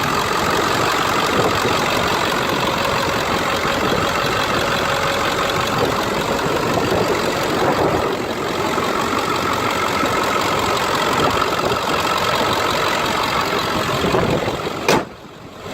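Ford 7.3 L Powerstroke turbo-diesel V8 idling steadily with diesel clatter. A sharp click near the end, then the sound briefly drops away.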